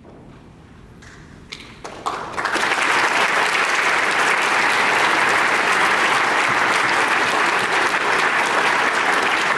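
Audience applause at the end of an orchestra piece: after a brief hush, clapping breaks out about two seconds in and carries on steadily.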